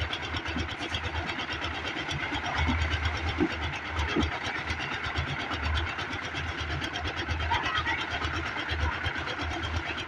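Concrete mixer's engine running steadily with a fast, even beat and a low rumble.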